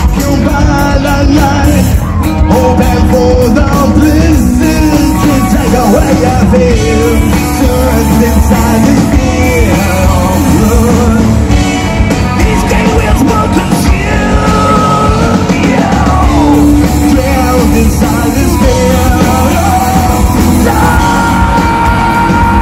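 Live rock band playing loudly: drum kit, bass guitar and electric guitar with a man singing.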